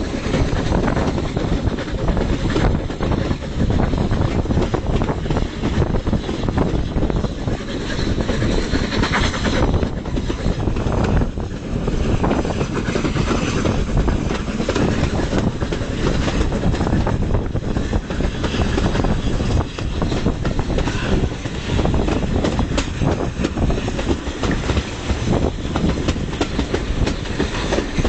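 Steam train double-headed by an LB&SCR Terrier 0-6-0T and an LSWR M7 0-4-4T tank engine, heard from an open carriage window: the carriage wheels clatter continuously over the track while the locomotives work hard up the climb ahead. Wind rushes on the microphone.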